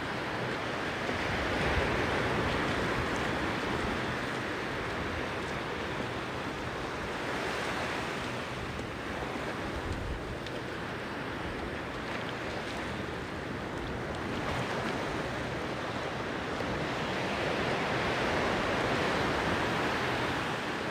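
Ocean surf washing onto a sandy beach: a steady hiss that swells and eases every several seconds as the waves come in.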